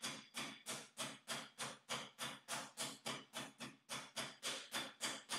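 Wooden meat mallet pounding a pork fillet wrapped in cling film on a plastic chopping board to flatten it: a steady run of dull thuds at about three strikes a second.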